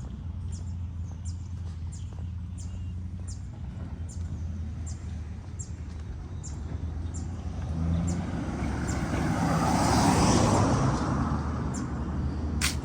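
A car passing, building to its loudest about two-thirds of the way through and then fading, over a steady low hum. Footsteps tick about twice a second, with one sharper click near the end.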